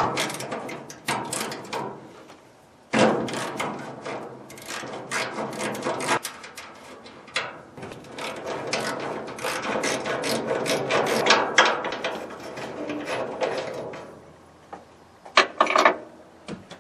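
Metal clicking and clattering from hand tools working on a truck's hood latch as it is taken off: dense runs of rattling clicks with short pauses, and a few sharp knocks near the end.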